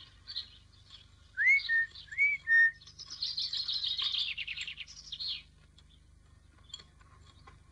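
Birds singing: two clear upslurred whistles, each followed by a short flat note, then a rapid trill of a couple of seconds that drifts slightly down in pitch, with a few faint chirps after it.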